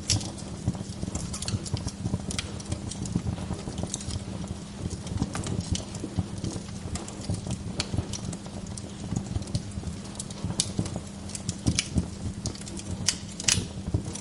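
Wood fire crackling in a fireplace: a dense low crackle with irregular sharp pops and snaps.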